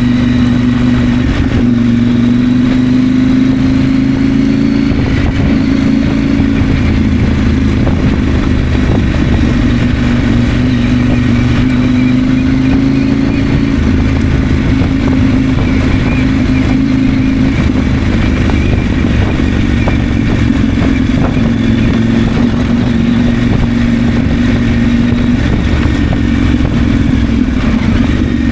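2024 KTM 890 Adventure's 889 cc parallel-twin engine running steadily while riding, its pitch rising and easing a little several times as the throttle changes.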